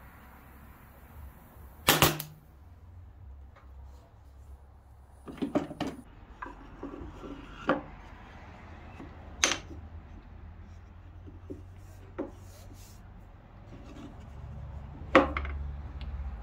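An 18-gauge brad nailer fires once, a sharp snap about two seconds in. Then come scattered wooden knocks and clacks as the hinged pine boards of the press are handled, the loudest one near the end.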